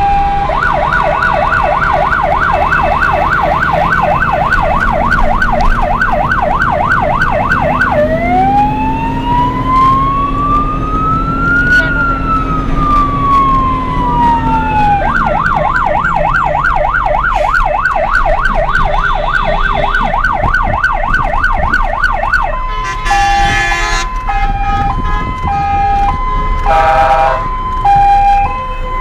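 Electronic emergency-vehicle siren cycling through its tones: a fast yelp, then a slow wail rising and falling about 8 seconds in, the yelp again, and a two-tone hi-lo alternation from about 22 seconds on. Under it runs the low rumble of the vehicle's engine, heard from inside the cab.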